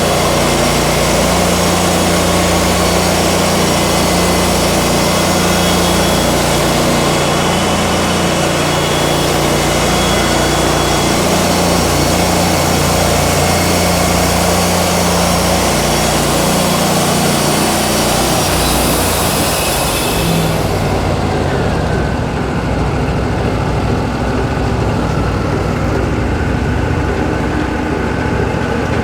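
Wood-Mizer LT40 band sawmill running: the engine drones steadily while the band blade cuts through a pine log with a loud, hissing cutting noise. About two-thirds of the way through, the cutting noise drops away, leaving the sawmill engine running on its own.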